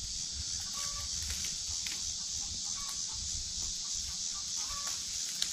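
Chickens clucking now and then, short calls a second or two apart, over a steady high-pitched insect drone.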